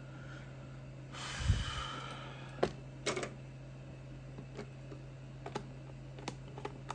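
Hands handling a plastic Bluetooth speaker casing and its small screws: a short rustle with a knock a little over a second in, then sharp plastic clicks and scattered light taps, over a steady low hum.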